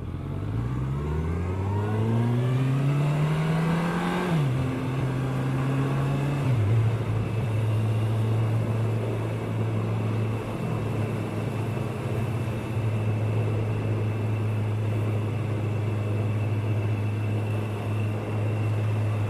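Kawasaki ER-6n parallel-twin motorcycle engine pulling away and accelerating, its pitch climbing, then dropping at two upshifts about four and six and a half seconds in, before settling into a steady cruise with wind rush.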